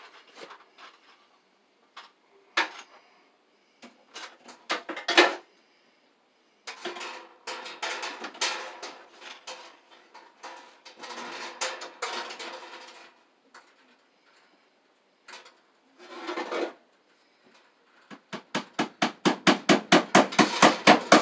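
Ground wire being run and fastened along the joists with a hammer and cable staples: scattered knocks and stretches of scraping and rustling, then a fast run of light hammer taps near the end.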